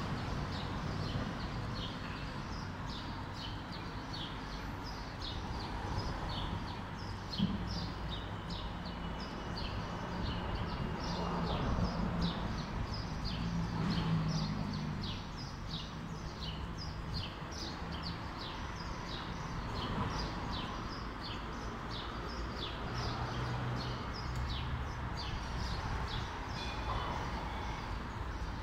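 Small birds chirping continuously, short high chirps a few each second, over a steady low background rumble.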